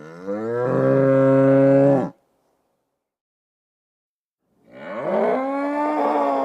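Cow mooing: a long, loud moo that rises in pitch and then holds, ending about two seconds in. After a silent gap, a second moo comes near the end.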